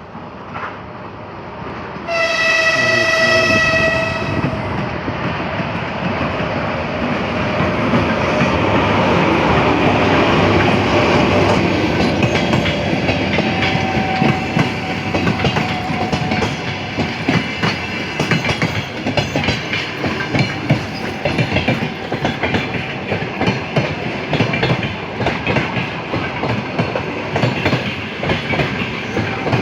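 EP1M electric passenger locomotive sounds a single horn blast of about two seconds, then the train pulls out. Its wheels rumble and clack over the rail joints as the carriages roll past.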